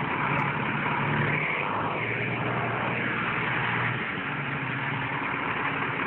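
Beiben V3 6x4 tractor truck's diesel engine idling steadily.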